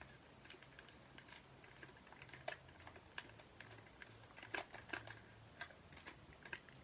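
Faint, irregular light clicks and taps, a few a second, over a low room hum.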